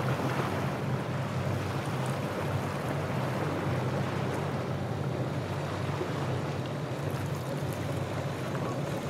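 Boat motor running with a steady low drone over the wash of waves and surf.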